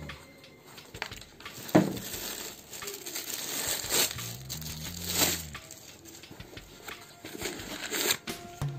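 Handling noise: rustling with a few sharp knocks and clatters as new sneakers, their cardboard shoebox and plastic wrapping are moved about. The loudest knock comes just under two seconds in, and two smaller ones come around four and five seconds.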